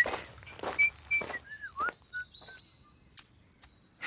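Someone whistling a tune in short notes and glides, with footsteps; the whistling stops about two and a half seconds in, leaving only a few more steps.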